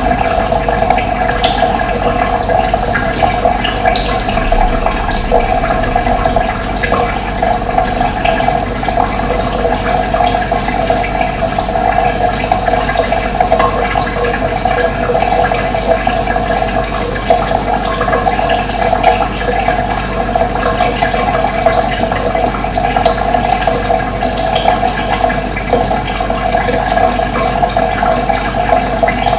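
Running water, a steady rushing, gurgling flow.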